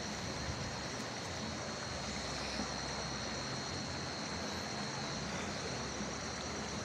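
Steady rush of flowing stream water, with a thin, steady high-pitched whine running over it.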